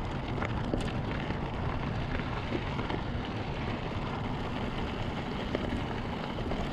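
Mountain bike rolling over a dirt and gravel fire road: a steady rushing noise of tyres on loose ground, with scattered small ticks of gravel.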